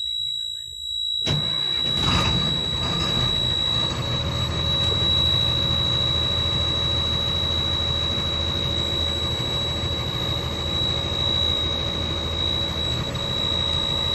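A Sany crane's Shanghai diesel common-rail engine starts about a second in, catches, and settles into steady running as fuel rail pressure builds. A steady high-pitched tone sounds over it.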